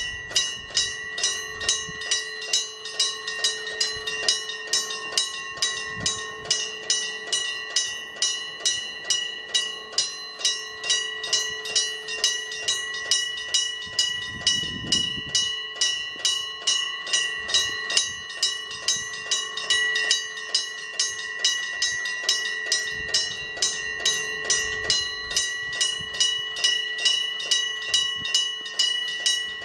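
Japanese railway level-crossing alarm bell ringing steadily at about two strokes a second, warning that a train is approaching. It starts right at the beginning.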